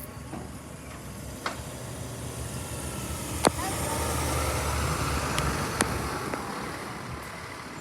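A heavy truck's engine swelling as it passes and easing off again, with three sharp clanks, the loudest about three and a half seconds in.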